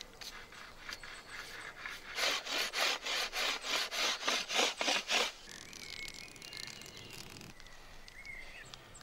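A hand tool scraping wood in a quick, even run of about a dozen strokes, roughly four a second, starting about two seconds in and stopping after about three seconds.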